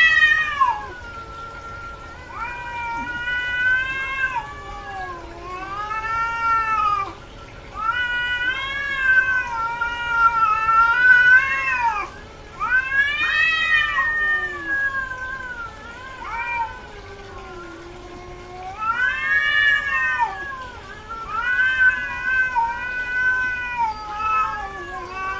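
Female cat in heat yowling: a run of long, drawn-out meows that rise and fall in pitch, about eight calls with short pauses between them.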